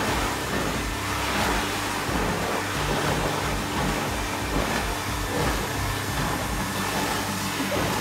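Build-A-Bear stuffing machine's blower running steadily, blowing fluff through the nozzle into a teddy bear while its foot pedal is held down.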